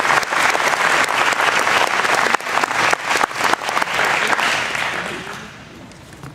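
Audience applauding with many hands clapping, dying away about five seconds in.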